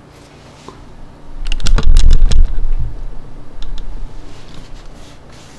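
A heap of mobile phones and phone batteries clattering and knocking together on a tabletop as they are swept up by arms, with heavy thumps. The loudest burst comes about two seconds in, followed by a few lighter clicks.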